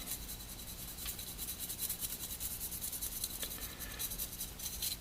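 Soft toothbrush wet with alcohol scrubbing a water-damaged phone motherboard, a faint scratchy brushing in quick light strokes, several a second, to clean corrosion off the board.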